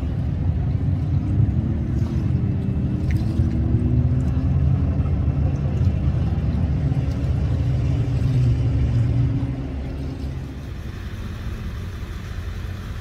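Speedboat engine running hard at speed, a loud low rumble whose note wavers slightly up and down. About ten seconds in it drops away to a quieter low rumble.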